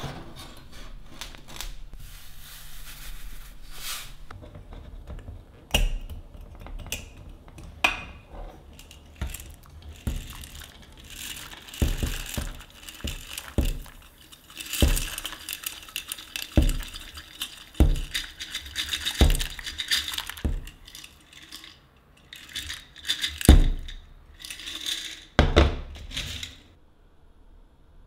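Kitchen handling sounds: a series of knocks and clinks of a steel pot and a glass jar, and a longer rattle as dry fusilli pours from the jar into the pot.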